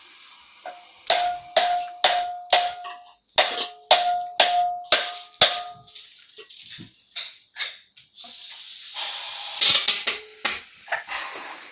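Metal tool strikes on a ceiling fan part during manual ring fitting, about a dozen sharp hits, each ringing briefly, then lighter clicks and a metallic clatter near the end.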